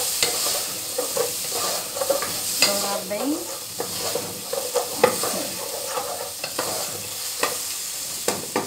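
Sliced onion and garlic sizzling in olive oil in an aluminium pan, being browned, while a wooden spoon stirs them and scrapes and taps against the pan.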